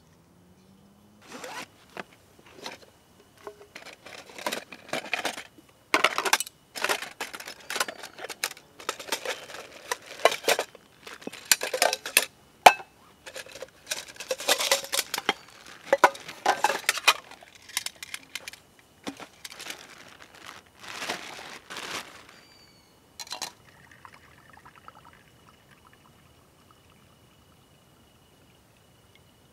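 Aluminium pots, lids and parts of a Trangia camping cook set clinking and scraping as they are unpacked, with plastic wrapping rustling, in irregular bursts that die away a few seconds before the end.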